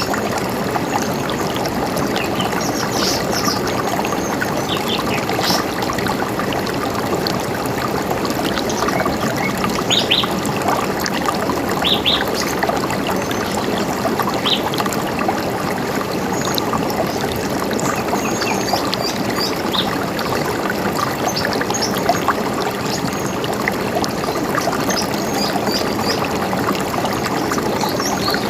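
A river running steadily, with short, scattered bird chirps high above the rush of the water.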